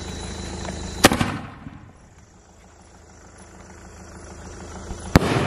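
Sony Fireworks 'Denmark' sky shot firing: a sharp pop as the shell launches from its tube about a second in, then a louder, echoing bang near the end as the shell bursts overhead.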